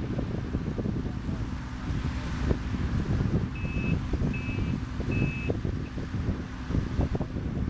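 Case CX130D long-reach excavator's diesel engine running as it works the trench bank, under heavy wind buffeting on the microphone. About halfway through, a reversing alarm beeps three times.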